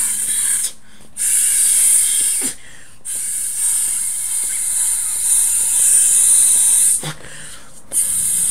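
An inflatable beach ball being blown up by mouth: hissing blows of breath through its valve, four of them with short pauses to inhale, the longest lasting about four seconds.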